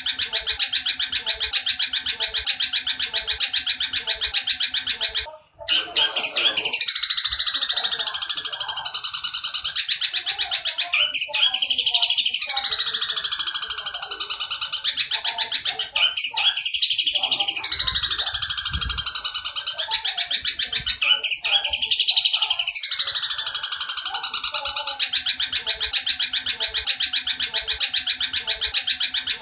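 Oriental dollarbird (tengkek buto) calls in a rapid-fire series: a fast, even run of harsh notes, then from about five seconds in four long harsh chattering phrases that each slide down in pitch and stop abruptly, and the fast run again near the end.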